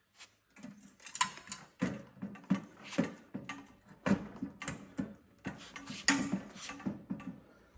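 Heater parts being handled and fitted: a dense, irregular run of sharp clicks, knocks and rattles.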